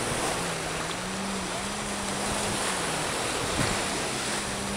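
Wind buffeting the microphone over surf washing on the beach, an even rushing noise. A faint steady low drone runs underneath.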